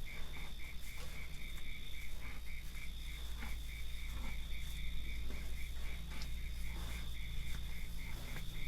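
Night chorus of insects and frogs: a steady high-pitched trill with a second call pulsing about five times a second, over a constant low hum and a few faint scattered clicks.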